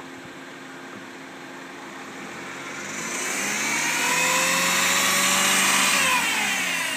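Car engine idling in neutral, then revved up over a couple of seconds, held loud for about two seconds and let back down near the end.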